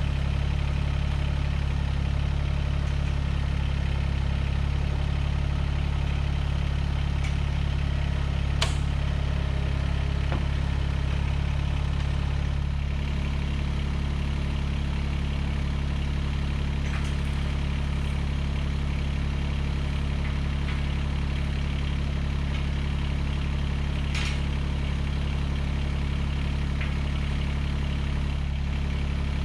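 Engine running steadily at a constant idle, its tone shifting slightly about halfway through, with a couple of brief sharp clicks.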